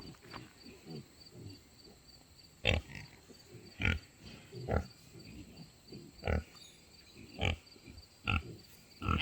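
Pig grunting: a run of short, separate grunts, roughly one a second.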